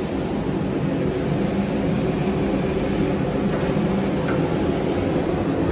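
Steady low roar of a commercial kitchen's extraction hood fan and gas burner under a large pot of frying onions.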